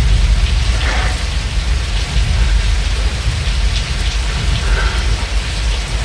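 Heavy rain falling steadily, with a deep rumble underneath.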